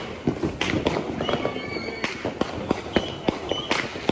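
Fireworks going off: a dense, irregular string of sharp pops and crackles, with a few louder bangs about every second and a half.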